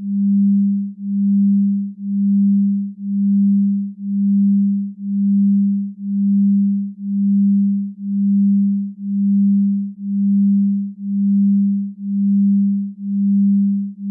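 A single low, pure electronic tone that swells and fades about once a second in an even pulse.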